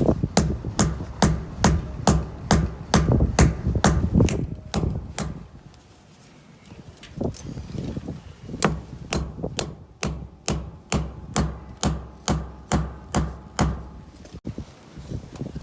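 A hammer striking in a steady rhythm of about two or three blows a second, in two runs with a pause of about three seconds between them.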